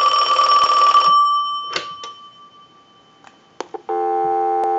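Western Electric 2565 telephone's bell ringing on a ring cycle, stopping about a second in and dying away. Then a few sharp clicks as the handset is lifted off the hook, and a steady dial tone starts near the end.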